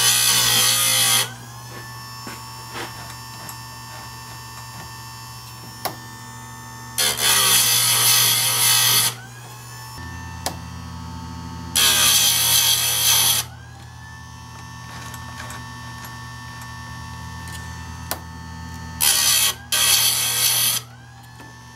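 Electric chainsaw chain sharpener: its motor hums steadily while the grinding wheel is brought down on the chain's cutters one after another, a loud grinding rasp of a second or two each time, about five times. After each grind the motor's whine climbs back up to speed.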